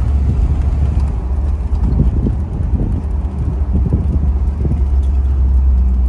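Inside the cabin of a Pontiac Trans Am cruising at high speed: a steady low drone from its 301 V8 with road and wind noise, and some uneven low surges between about two and five seconds in.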